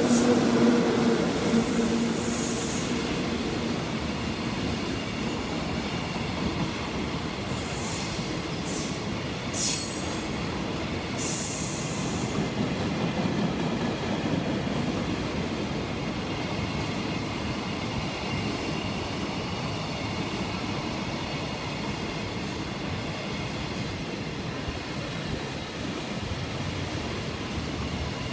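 Freight train wagons rolling past at speed behind an EF66 electric locomotive, a steady rumble of steel wheels on rail with short high-pitched wheel squeals, several of them between about 8 and 12 seconds in. A low hum from the locomotive fades out in the first two seconds as it moves away.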